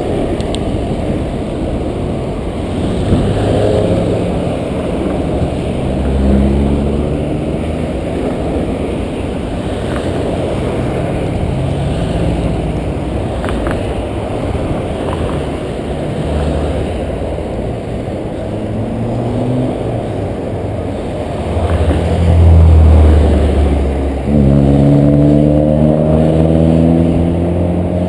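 Road traffic close by: car engines running and accelerating past over a steady low noise. A deep, louder engine passes about two-thirds of the way through, and near the end a car accelerates away, its pitch rising.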